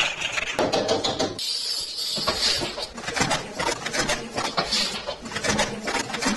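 Plastic felt-tip markers clattering against one another and the plastic tub as a hand rummages through them: a dense run of small clicks and knocks.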